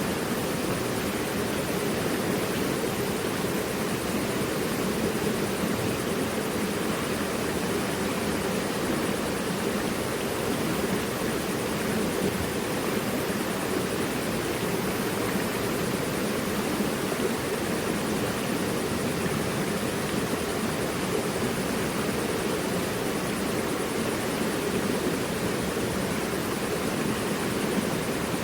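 Mountain river rushing over rocks: a steady, even roar of flowing water with no breaks.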